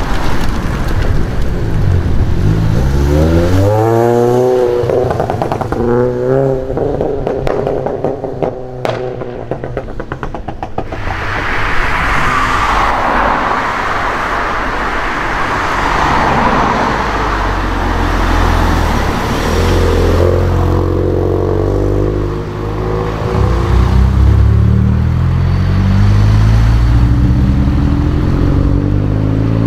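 Volkswagen Golf R and GTI hot hatches accelerating hard, their turbocharged four-cylinder engines revving up through the gears. A quick series of sharp exhaust cracks comes partway in, then a loud rushing pass-by, and more revving near the end.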